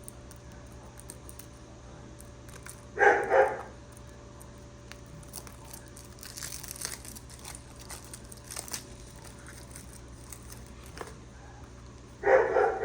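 A dog barks once about three seconds in and again near the end. Between the barks comes fainter crinkling and tearing of plastic wrap as a pack of cards is opened.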